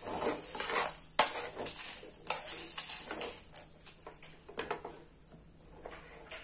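A perforated steel skimmer scrapes and stirs dry lentils, curry leaves and red chillies across a flat tawa as they dry-roast, with a sharp metal clink about a second in. The stirring thins out after about three seconds, leaving a few light clicks.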